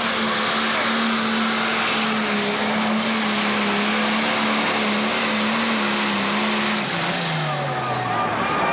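A Pro Stock pulling tractor's turbocharged diesel engine running loud and steady at full throttle while it drags the weight-transfer sled. About seven seconds in, the engine speed falls away as the pull ends.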